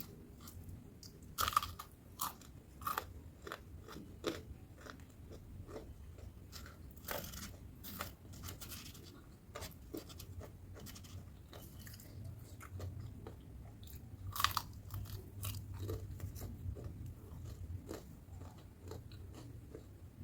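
Close-up eating sounds: crunchy bites and chewing of crispy battered fried tempeh, a string of irregular sharp crackles with two louder crunches, one about a second and a half in and one about fourteen seconds in.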